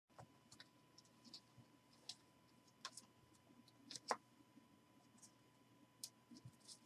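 Faint, scattered clicks and light taps of trading cards being handled and set down onto stacks on a table, the loudest about four seconds in.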